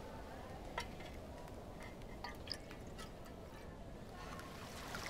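Metal spoon clinking and scraping in a tin bowl as food is spooned across, a few light separate clicks with a little liquid dripping, over a low steady background rumble.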